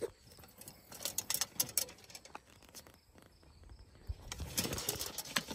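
Hand lever tube bender and a steel fuel line being handled: scattered light clicks and rattles, getting busier about a second before the end.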